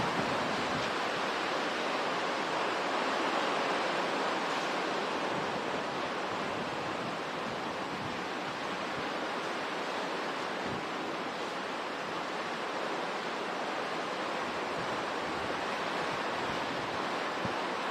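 Hurricane wind and driving rain over flooded water, a steady rushing noise.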